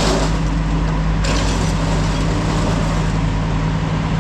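Vehicle engine running at a steady pitch, a constant low drone. A brief burst of hissy noise comes about a second in.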